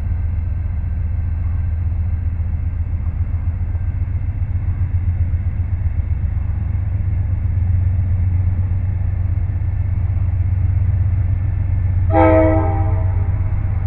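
GE C40-8 and AC4400CW diesel locomotives pulling a train away from a stand, a steady low rumble. Near the end, a K5LA air horn gives one short blast.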